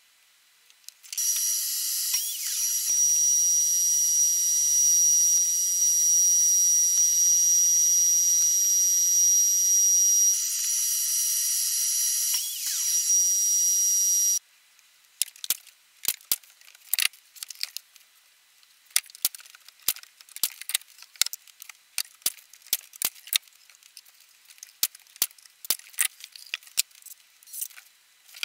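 A power saw runs steadily for about thirteen seconds, cutting wooden frame strips to length, then stops abruptly. After it comes a run of light clicks and taps as the wooden pieces are handled and fitted together.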